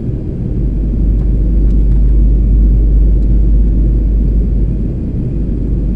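Steady low rumble of a jet airliner's cabin noise in flight on descent, growing a little louder about a second in.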